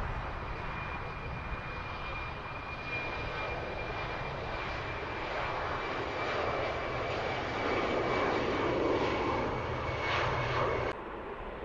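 Airbus A380's four Rolls-Royce Trent 900 turbofans running at taxi power: a steady high whine over a rumbling rush, growing louder in the second half. Near the end the sound cuts off abruptly to a quieter, duller engine noise.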